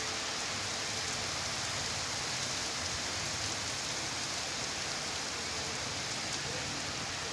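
Heavy rain pouring down steadily, a dense even hiss of rain on hard surfaces.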